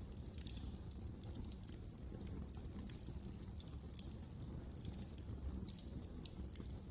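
Wood fire burning in a fireplace: logs crackling with frequent irregular sharp pops over a steady low rumble of the flames.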